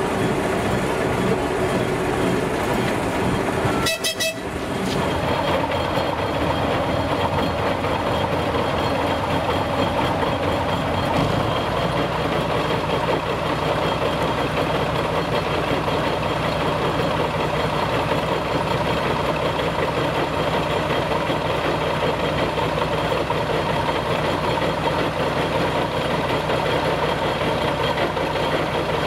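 Diesel engine of a TU2 narrow-gauge locomotive running steadily. About twelve seconds in, a deeper tone enters and holds. About four seconds in there is a brief sharp break, with a short dip in loudness.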